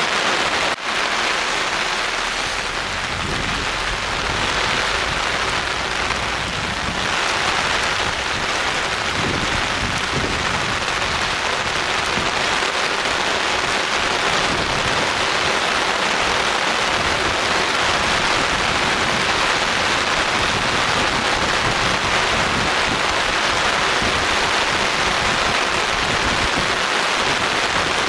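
Steady rain falling, an even, unbroken hiss of drops on surfaces, with one brief dip about a second in.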